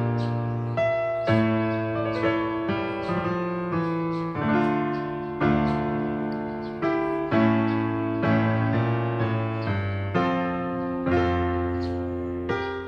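Background piano music: slow, gentle chords struck about once a second and left to ring.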